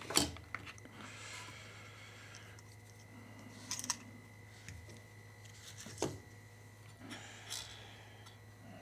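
Faint handling sounds of 20 gauge solid hookup wire being pulled from its spool and worked by hand: a soft rustle in the first couple of seconds, then a few light clicks, over a steady low hum.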